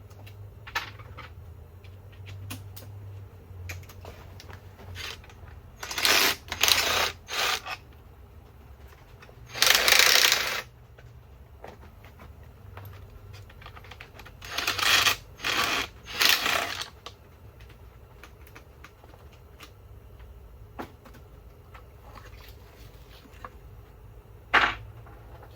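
Metal hand tools and engine parts clinking and clattering in short bursts: a group of clanks about six seconds in, a longer rattle around ten seconds, another group around fifteen to seventeen seconds, and a single clank near the end.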